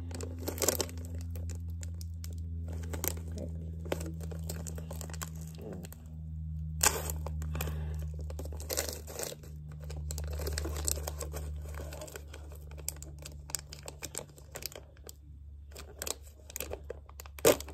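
Plastic M&M's Minis snack pouch being crinkled and torn open by hand, with irregular crackles and rips as the tear strip is pulled off and the opening picked at.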